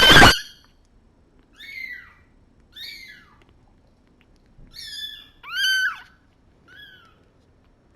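Three-week-old orphan kittens meowing, hungry: one loud, harsh cry at the very start, then five short, high-pitched meows, each rising and falling in pitch, spread over the next several seconds.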